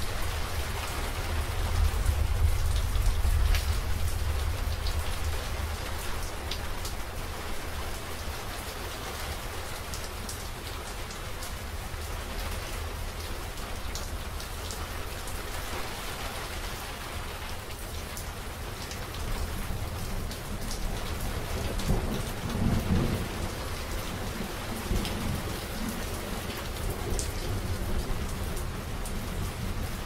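Thunderstorm: steady rain with scattered drop ticks, and two long rolls of thunder. The first low rumble comes in the opening seconds, and a second one builds about two-thirds of the way through.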